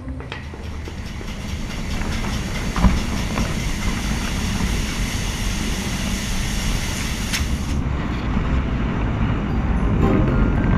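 Industrial skin-processing machine with a string-belt conveyor running: a steady low rumble with a hiss that drops away about eight seconds in, and two sharp clanks. Music notes come back in near the end.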